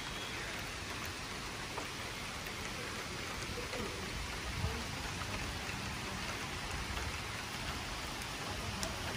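Steady summer rain falling, an even hiss of drops on surfaces, with one faint knock about halfway through.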